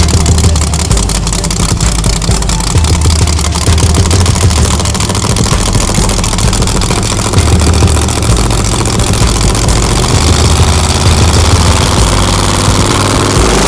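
Race car engine running loudly with a heavy low rumble that swells and eases every few seconds.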